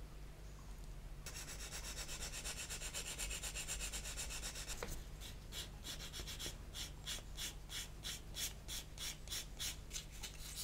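Sanding stick rubbed back and forth over a plastic model part, blending an added shield into the bridge front. It starts as a steady scraping about a second in, then turns into quick, even strokes, about three a second, from about halfway.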